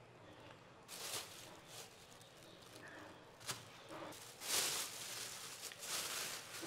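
Thin plastic bag rustling and crinkling in several short bursts as buns are put into it by hand, loudest about four and a half seconds in.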